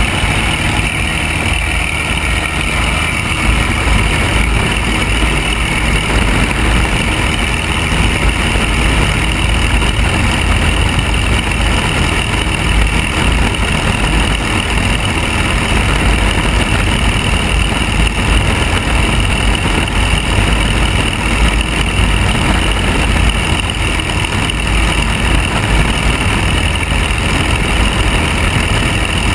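Piper Archer III's four-cylinder Lycoming engine and propeller running steadily at takeoff power, a loud, even drone with a heavy low rumble, through the takeoff roll and climb-out.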